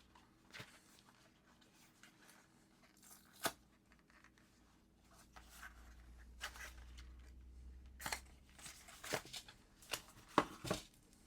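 A knife's retail box being opened and its packaging handled: scattered faint scrapes, rustles and clicks, with a few sharper clicks near the end.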